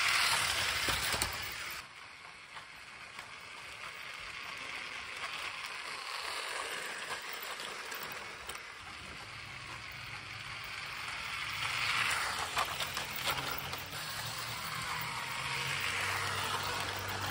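Brick-built toy train rolling over plastic brick track, its wheels giving a steady rattle that swells as it passes close to the camera near the start and twice more later.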